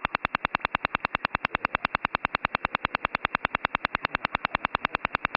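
The Russian Woodpecker, the Duga over-the-horizon radar's signal heard on a shortwave radio: a steady, rapid tapping of about ten sharp pulses a second.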